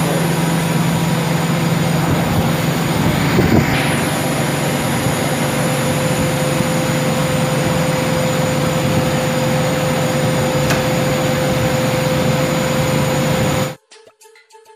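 Steady, loud hum of water-treatment plant machinery running, with a steady whine above the drone, briefly louder for a moment about three and a half seconds in. It cuts off abruptly near the end.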